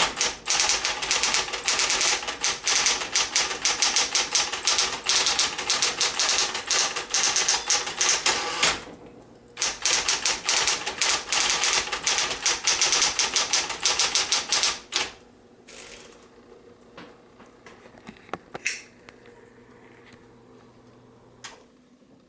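Smith-Corona Coronet Automatic 12 electric typewriter being typed on fast: dense runs of rapid keystroke clacks with a short break about nine seconds in. The typing stops about fifteen seconds in, leaving a faint steady hum and a few isolated clicks.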